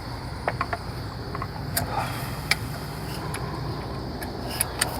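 Scattered light metallic clicks and taps as a bolt and the fuel pressure regulator's clamp are handled and fitted by hand, over a steady low hum.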